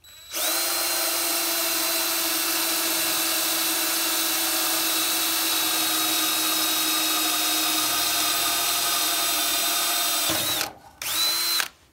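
DeWalt cordless drill running at a steady, even pitch for about ten seconds as it bores a hole through the golf cart's metal light-mounting bracket. It stops, then gives one more short burst of about a second near the end.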